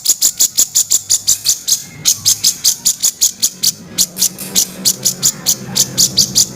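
Cucak jenggot (grey-cheeked bulbul) giving its harsh chattering call: a fast, even string of sharp, high notes, about seven a second, with brief breaks about two and four seconds in.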